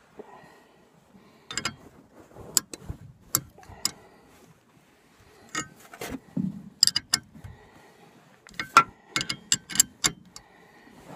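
Metal wrench clicking and clinking on a sway bar link nut as it is fitted and worked, in irregular clusters of sharp clicks.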